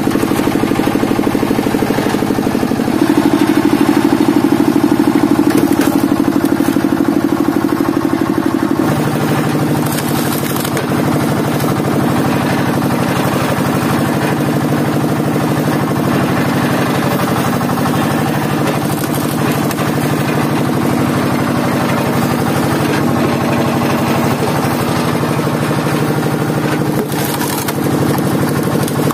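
Engine driving a hydraulic log splitter's pump, running steadily with a regular pulsing beat. Its note rises and grows louder from about three seconds in to about nine seconds in, then drops back.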